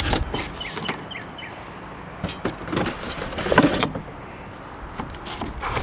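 A few scattered clicks and knocks of parts being handled on a zero-turn mower, the loudest about three and a half seconds in and another near the end.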